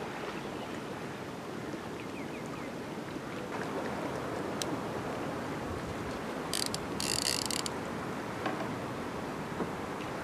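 Steady background hiss of the open air, with a brief crinkling, scraping burst about seven seconds in.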